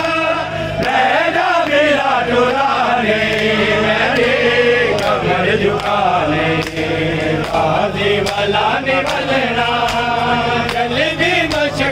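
A group of men chanting a noha (mourning lament) together. Sharp slaps of chest-beating (matam) keep a steady beat under it.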